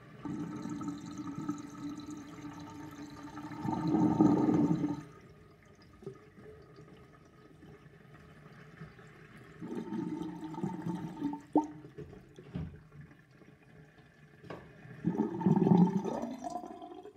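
Water draining down an old sink drain and gurgling in three spells: a long one over the first five seconds, loudest near its end, another about ten seconds in, and a third near the end.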